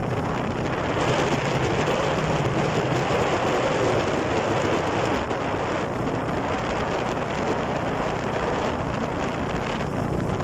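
Steady rushing noise of a vehicle driving in the rain: road and rain noise, even throughout.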